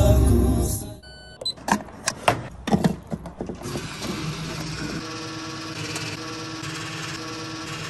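Petrol-station fuel dispenser: a short electronic beep, a few clunks as the nozzle goes into the car's filler neck, then the pump running with a steady hum as fuel flows into the tank.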